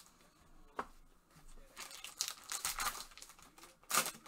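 Trading cards being handled and shuffled in gloved hands: dry crinkling and rustling, with a short click just under a second in and a louder crinkle near the end.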